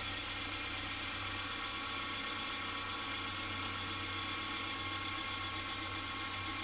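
Mercedes-Benz W246's M270 four-cylinder engine running just after a cold start, with a rapid, steady high-pitched 'chi-chi-chi-chi' ticking over the engine note, a noise the owner flags as abnormal. The treble is boosted by an equaliser.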